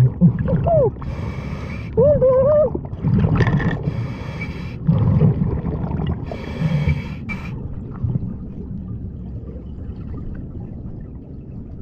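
A scuba diver breathing underwater through a regulator: three hissing inhalations a couple of seconds apart, each followed by a low bubbling exhale. Short muffled voice sounds come through the mouthpiece near the start, and the breathing grows quieter near the end.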